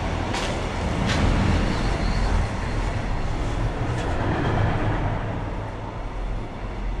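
Freight train of tank wagons passing on the tracks, a steady low rumble and rolling noise heard from inside the building, with two sharp clicks within the first second or so.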